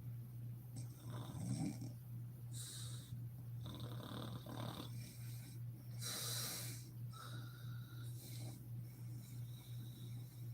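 A woman snoring in her sleep: several uneven snores and breaths a second or two apart, over a steady low hum.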